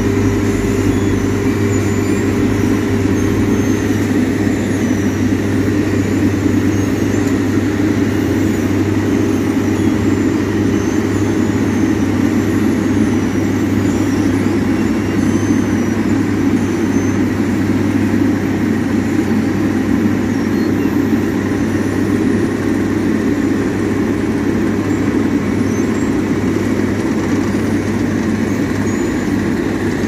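Asphalt paver's diesel engine running steadily at close range, a constant loud drone with a low hum, as the paver lays the bituminous concrete course.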